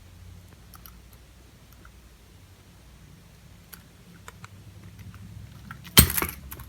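Light, scattered clicking of a green-cheeked conure's beak on plastic bead and ring toys, then a sudden loud clatter near the end.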